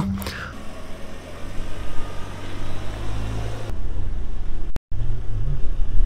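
Renault Duster SUV's engine running steadily, then pulling away with a short rise in engine pitch a little after the middle. The sound drops out for an instant just before the rise.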